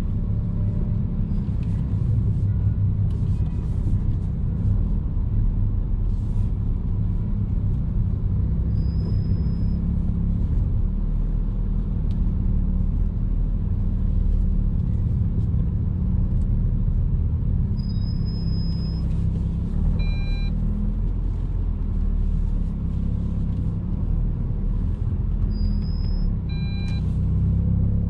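Alpine A110's turbocharged 1.8-litre four-cylinder engine heard from inside the cabin, running at light, steady load as the car drives slowly, a low rumble without hard revving. There is a short beep about two-thirds of the way through and another near the end.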